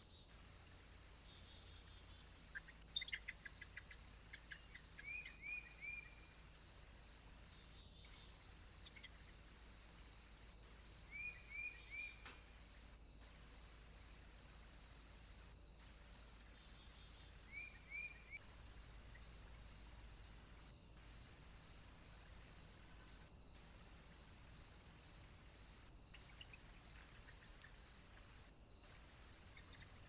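Faint woodland ambience: a high insect chirp repeats evenly, a bit more than once a second, over a steady hiss. A few short groups of quick high bird chirps come in, in threes and pairs. The sound briefly drops out several times.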